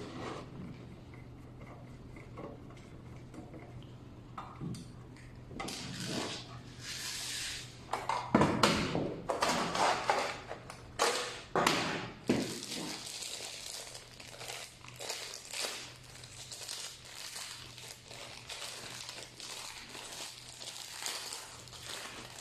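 Hands handling an NVR box and hard drive: irregular rustling, scraping and light knocks, busiest from about six to thirteen seconds in, over a faint steady hum.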